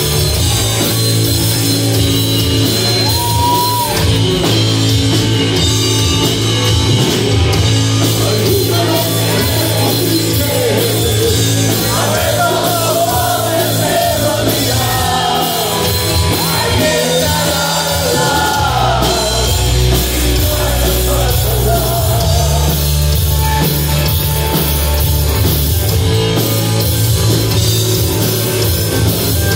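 Live heavy rock band playing loud: distorted electric guitar, bass guitar and drums, with a singer's voice in the middle of the passage, echoing in a hall.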